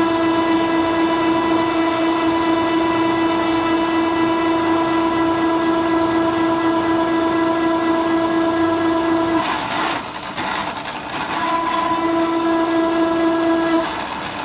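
Milling cutter chattering as it plunges into a solid steel cylinder head, giving one steady ringing tone at a single pitch. The tone breaks off after about nine seconds, returns at the same pitch about two seconds later, and stops shortly before the end.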